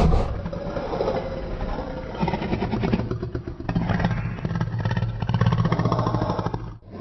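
Indominus Rex creature sound effect from Jurassic World: a low, rattling growl made of rapid pulses, swelling and easing in several waves, breaking off just before the end as another growl begins.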